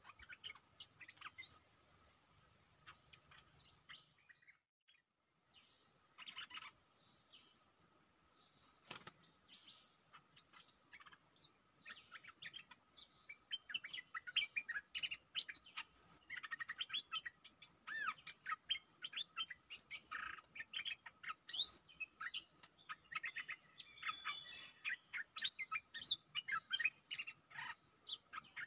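Stripe-throated bulbuls calling, a caged decoy and a wild territorial bird answering each other in rapid short chirps and chatter. The calls are sparse at first, break off briefly about five seconds in, and come thick and fast from about halfway.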